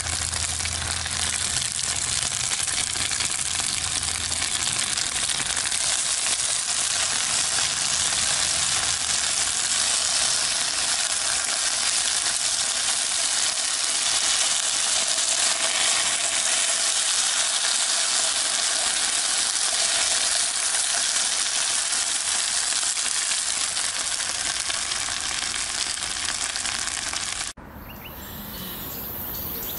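Potato strips sizzling steadily as they fry in oil in a nonstick pan on a portable butane stove. The sizzling cuts off abruptly near the end, giving way to a quieter, different background.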